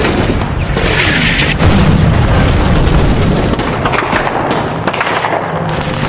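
Battle sound effects: heavy explosions booming over a continuous low rumble, with a louder blast about a second and a half in.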